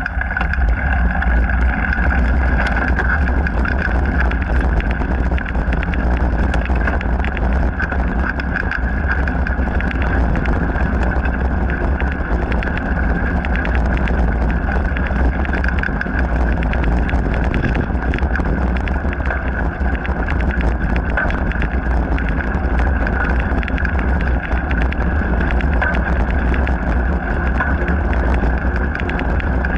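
Ride noise from a mountain bike on a dirt and gravel trail: constant wind buffeting on the bike-mounted action camera's microphone, over tyres rolling and the bike rattling on the rough surface, with a steady stream of small clicks and knocks.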